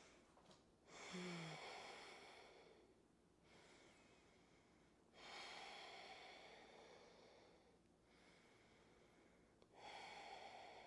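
Faint, slow breathing: three long breaths about four seconds apart, each starting suddenly and fading away over two to three seconds, as in a yogic breathing exercise.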